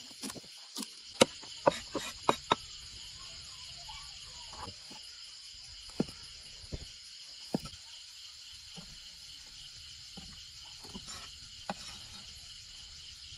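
A cleaver chopping long beans and cherry tomatoes on a thick wooden chopping block: a quick run of five sharp knocks about a second in, then single chops every second or few seconds. Insects chirr steadily underneath.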